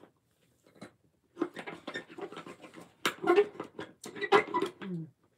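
Slurping a half-frozen slushy drink through a straw: a crackly, gurgling suck that sets in about a second and a half in and swells into two louder pulls near the end.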